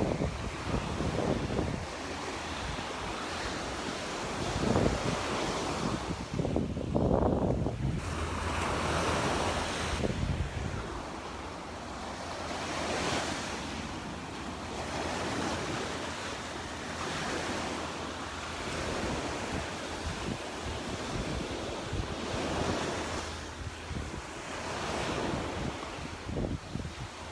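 Surf breaking and washing up on the beach, swelling and ebbing every few seconds, with wind buffeting the microphone in gusts.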